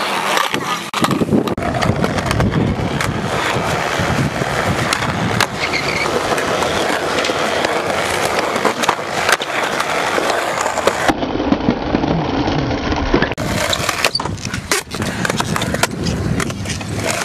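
Skateboard wheels rolling over concrete with a steady grinding hum, broken by frequent sharp clacks and knocks of the board hitting the ground.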